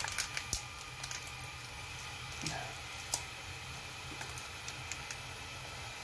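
Light scattered clicks and crinkles from hands handling paper-foil instant coffee sachets: several in quick succession at the start, one sharper click about three seconds in, then a few small ones.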